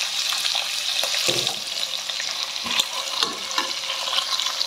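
Boiled mutton pieces frying in hot oil with browned onions, a steady sizzle, while a spatula stirs them around the pot with scattered short clicks.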